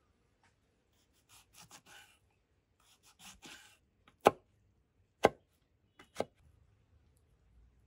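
Knife cutting through jackfruit on a wooden chopping board: two short spells of soft, crunchy slicing, then three sharp knocks of the blade on the board about a second apart.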